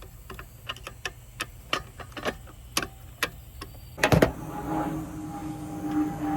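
Irregular clicks and taps of hand tools and small parts being handled while wiring, then a loud clatter about four seconds in, followed by a steady hum.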